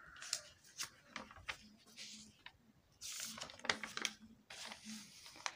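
Paper textbook pages rustling as they are handled and turned, with a few light taps and a longer rustle about three seconds in.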